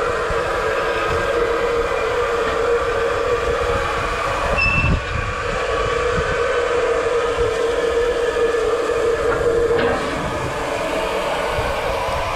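Midland/LMS Fowler 4F 0-6-0 steam locomotive No. 43924 standing at the platform, giving off a steady steam hiss with a constant hum in it. A brief high squeak comes about halfway through.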